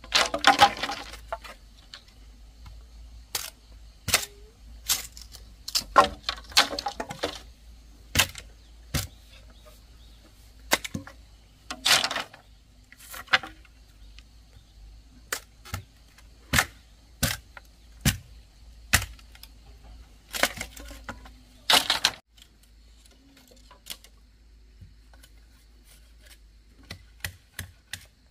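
Irregular sharp knocks and clicks from hands-on work, about one every second, mixed with a few longer, noisier bursts under a second each; they thin out near the end.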